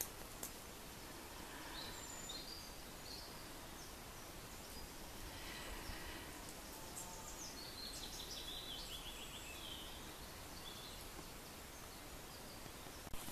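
Faint woodland ambience: a steady hiss of breeze in the pine trees with several birds singing, including a falling trill of quick high notes about eight to ten seconds in.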